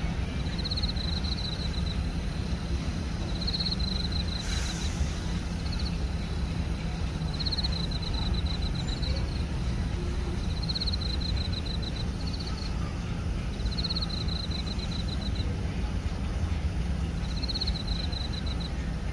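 Crickets chirping: high, pulsed trills repeating every couple of seconds over a steady low rumble. There is a brief hiss about four and a half seconds in.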